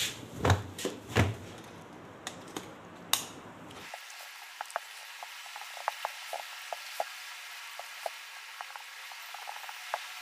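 Clothes and phone being handled with a few loud thumps, then from about four seconds in a steady hiss with many small crackling ticks, from an electric iron pressing clothes.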